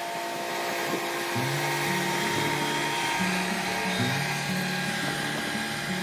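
Background music: held synth tones over a repeating bass line that steps between a few low notes, starting about a second and a half in.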